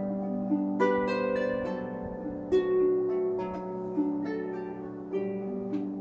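Solo wooden lever harp played by hand: plucked notes ringing on in a slow melody over held low bass notes.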